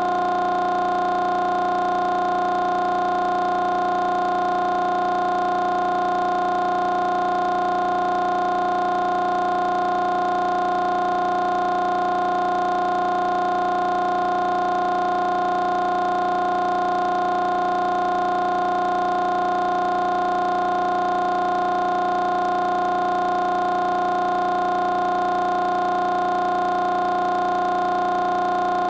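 A steady pitched tone with several overtones, holding one pitch and one level without any change or break.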